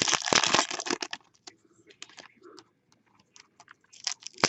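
Crinkling of a foil trading-card pack wrapper being handled and opened, in a dense burst at the start and another near the end, with scattered light clicks and rustles in between.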